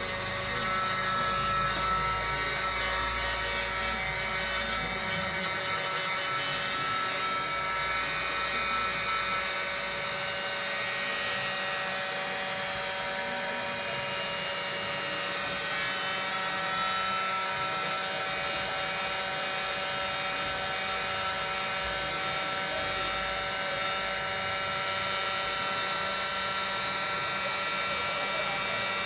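Hot air gun running steadily with a continuous motor whine, heating the phone's front panel to soften the screen adhesive.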